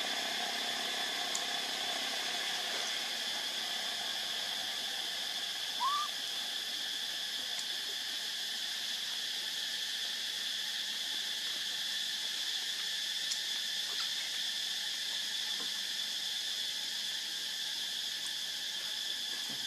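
Steady insect chorus, a shrill unbroken drone without pauses, with one short rising chirp about six seconds in.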